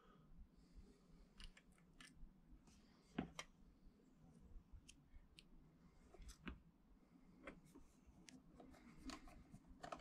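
Faint, scattered clicks and ticks of a precision screwdriver driving two small screws into the base plate of a Canon A1 camera, the loudest click about three seconds in.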